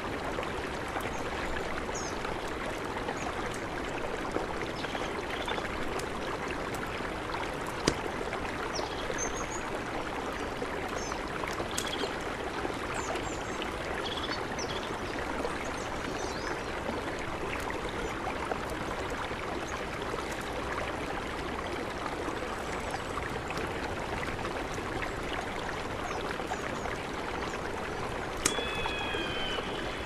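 Steady rushing of a mountain river, with occasional sharp crackles and pops from a campfire and brief high bird chirps. Near the end a bird gives a short falling cry.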